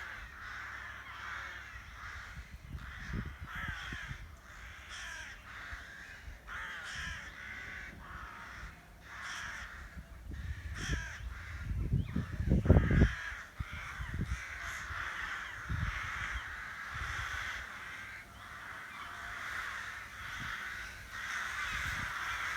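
A large rookery of rooks cawing continuously, many calls overlapping into a constant din. A few low rumbles come through around the middle.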